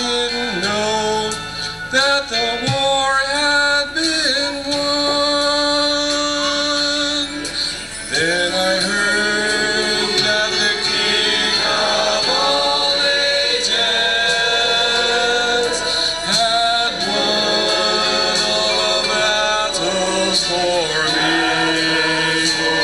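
Mixed church choir of men and women singing a hymn, with long held notes.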